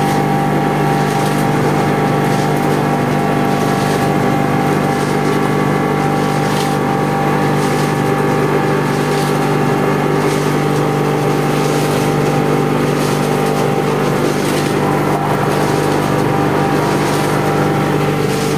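Electric vibrating table running with a steady, unchanging hum, shaking plastic moulds of wet concrete to compact the mix for curb stones.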